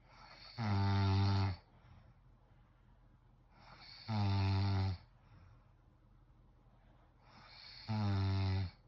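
A sleeping person snoring: three loud, deep snores, each about a second long and about three and a half seconds apart, each preceded by a faint rising breath.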